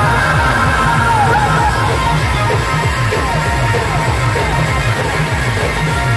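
Loud star band music: a heavy, driving drum and bass beat through a large speaker rig, with a lead melody of sliding, bending notes, and shouting from the crowd.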